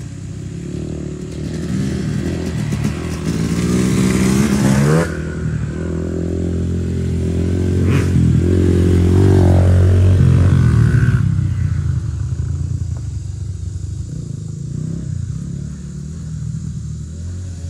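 Small youth dirt bike engine revving as it accelerates, pitch rising until it drops off suddenly about five seconds in. A second run builds to its loudest around nine to ten seconds, falls in pitch as the bike passes, and fades.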